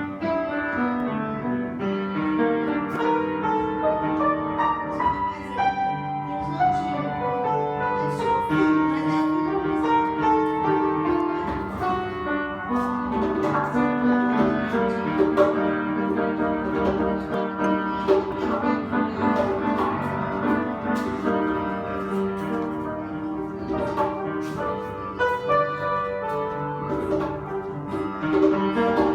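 Piano playing, joined by the rattle of caxixi shakers and the twang of a berimbau.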